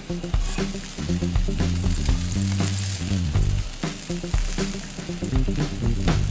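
Butter sizzling as it melts in a frying pan on a gas burner while the pan is swirled, with a music track playing underneath.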